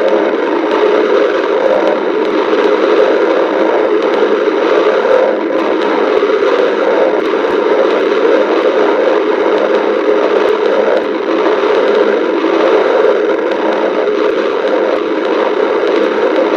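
Stomach growling recorded up close: a loud, steady, scratchy rushing noise that hardly changes, without distinct separate gurgles.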